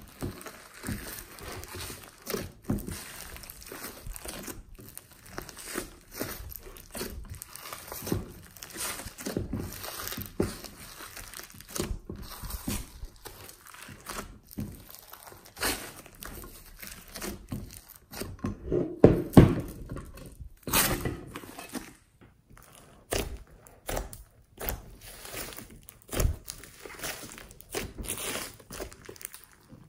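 Hands squishing, folding and stretching glossy slime mixed with clay and foam beads: a run of irregular sticky clicks, pops and crackles, loudest about two-thirds of the way in.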